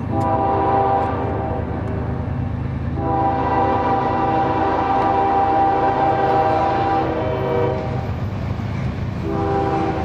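Air horn of CSX GE ES40DC locomotive 5201 sounding in blasts: one of about two seconds, a long one of about four and a half seconds, and a third starting near the end. Under the horn runs the steady low rumble of the lead diesel locomotives on the approaching freight.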